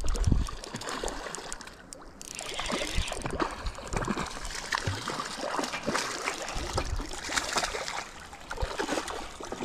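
Water splashing and trickling close by, with small knocks and rubbing from hands moving right next to the microphone.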